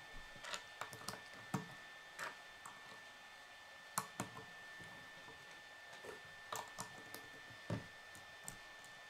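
Plastic K'nex rods and connectors clicking as they are snapped together and handled during assembly: scattered sharp clicks, some in quick pairs, with the loudest about four seconds in and near the end.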